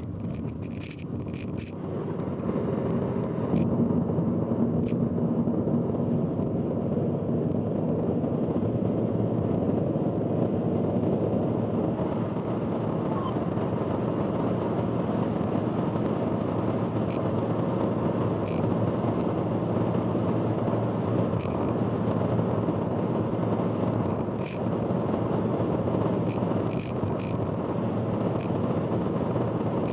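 Steady in-car driving noise (road, tyre and engine noise) from a car on an expressway, played back sped up four times. It comes out as a loud, dense rumble with scattered sharp ticks.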